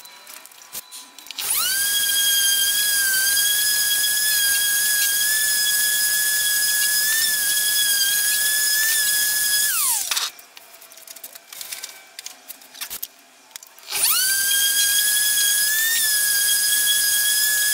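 AEG random orbital sander sanding a wood slab, running in two spells with a steady high whine. It spins up about a second and a half in and winds down with a falling pitch near ten seconds, then starts again about fourteen seconds in.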